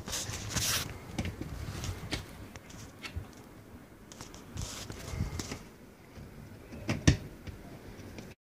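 Hay rustling with scattered light clicks and knocks, and one sharp knock about seven seconds in.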